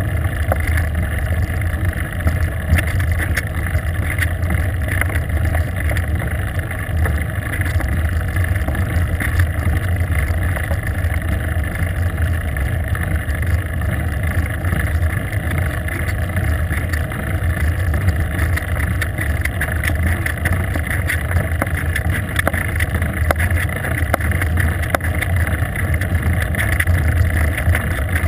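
Steady rush and low rumble of wind and road noise on a bicycle-mounted GoPro camera during a fast downhill descent on asphalt, with scattered faint ticks.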